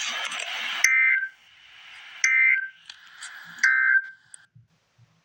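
Emergency Alert System End of Message signal: three short bursts of two-tone digital data screech (SAME code), about a second and a half apart, marking the end of the alert. A loud hiss of static cuts off just before the first burst.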